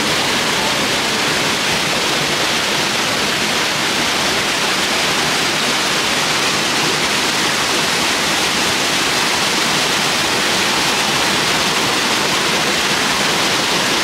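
A river rushing, a loud, steady wash of water.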